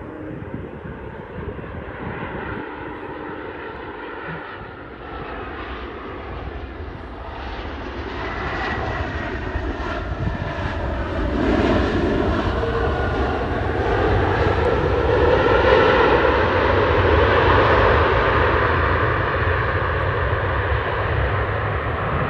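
Jet airliner's engines as it lands and passes close. The engine whine slides down in pitch, then a broad roar swells and is loudest about two-thirds of the way through.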